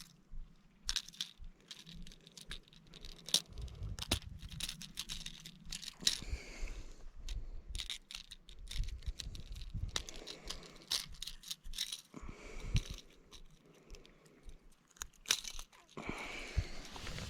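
Close handling noise: irregular clicks, light rattles and rustles, with a couple of longer rustling stretches about six seconds in and near the end.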